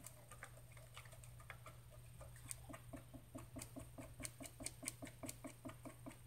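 A stir stick mixing two-part resin in a plastic cup, giving faint, quick, even clicking and scraping against the cup's sides that grows more regular about halfway through.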